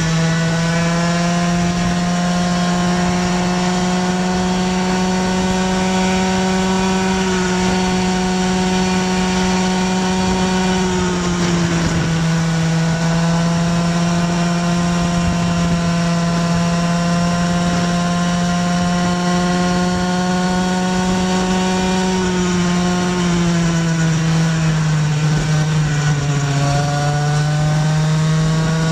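Small two-stroke engine of a gas Go-ped scooter running hard at steady high revs while riding. It dips in pitch briefly about eleven seconds in, then eases off for a few seconds past the twenty-second mark before climbing again.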